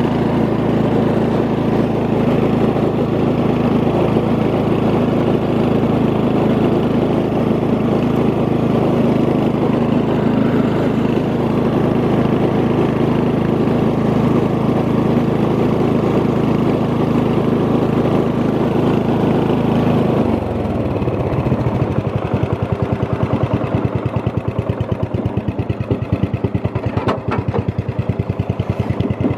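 Murray riding lawn mower's Briggs & Stratton 15.5 hp overhead-valve engine running steadily as the mower drives. About two-thirds of the way through, the note drops and becomes a rapid, even pulsing beat.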